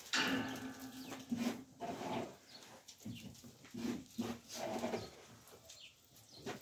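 Billy goats in a barn pen bleating: one strong call at the start, then several shorter calls amid rustling.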